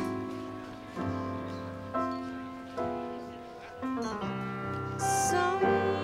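Slow jazz ballad intro: piano chords struck about once a second and left to ring. Near the end the band fills in with a cymbal and a woman's singing voice comes in.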